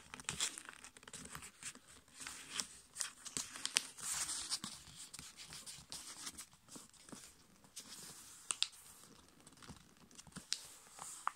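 A sheet of A5 copy paper rustling and crinkling as it is folded by hand and its creases are pressed down, with scattered sharp crackles, several clustered in the first four seconds and a couple more near nine seconds in.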